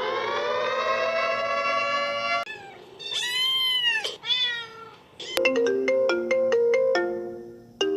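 Alarm tones played one after another: a long held musical note that stops about two and a half seconds in, then two rising-and-falling cat meows, then a ringtone melody of quick stepped notes, about four a second, starting a little past halfway.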